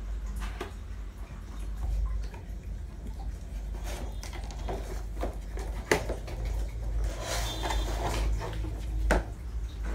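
Cardboard toy box and the plastic packing inside it being handled: scattered knocks and clicks, with rustling around two-thirds of the way in and a sharper knock near the end, over a steady low hum.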